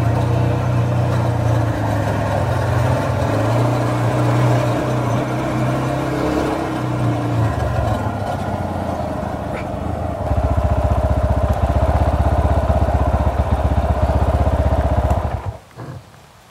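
250cc single-cylinder motorcycle engine (Zongshen RX3 type) running steadily at low speed, then settling about ten seconds in to a slower, evenly pulsing idle. The engine note cuts off sharply near the end.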